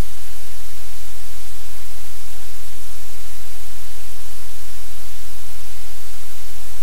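Loud, steady static hiss over a constant low electrical hum, with nothing else standing out: noise on a livecam's audio feed.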